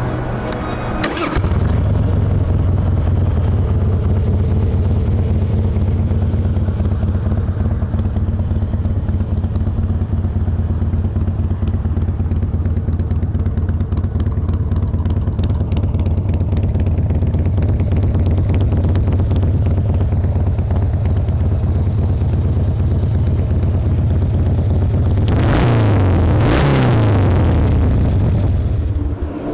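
The 2006 Harley-Davidson Heritage Softail Classic's fuel-injected 88-inch Twin Cam V-twin is cranked and catches about a second in, then idles steadily through Screamin' Eagle mufflers. Near the end the throttle is blipped twice, the revs rising and falling each time, before it settles back to idle. It is a healthy-sounding, good-running engine.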